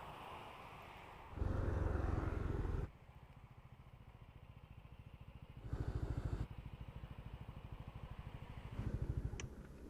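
Yamaha NMAX V2 scooter's single-cylinder engine running through a gutted ("kalkal") muffler, with a low, even pulsing that swells louder three times for a second or so.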